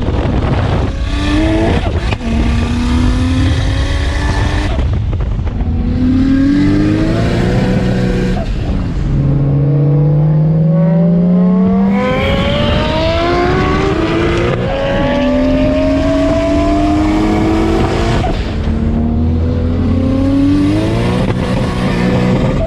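A VL Commodore's RB26DETT turbocharged straight-six, running on E85, revs hard through the gears. The engine's pitch climbs in long rising sweeps and drops back at each gear change, over and over.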